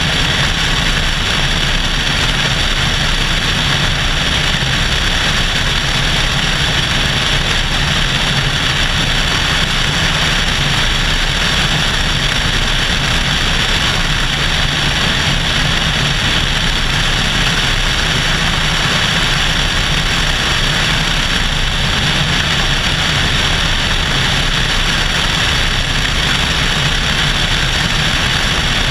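Cessna 172SP's four-cylinder Lycoming engine and propeller running steadily in flight, with wind rushing over a GoPro mounted on the outside of the plane. The drone and the rush hold an even level with no change in power.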